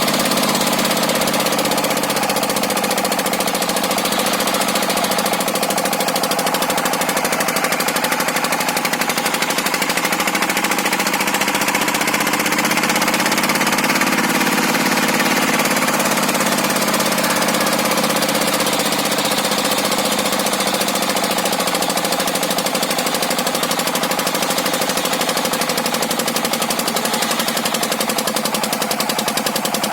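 Engine of a circular sawmill running hard with a fast, steady chugging. Around the middle its pitch sags and a hiss rises as the saw cuts, with the engine labouring against tough, fibrous wood and a dull, unfiled blade.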